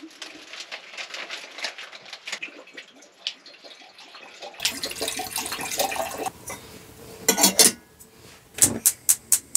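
Kitchen utensils and dishes clattering and clinking while filter coffee is being set up, busier in the second half, with a quick run of about five sharp clinks near the end.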